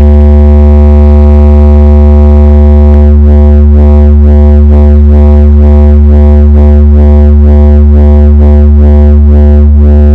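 Deep, steady synthesizer bass tone played very loud as a speaker check, with a rhythmic wobble of about two pulses a second joining in about three seconds in.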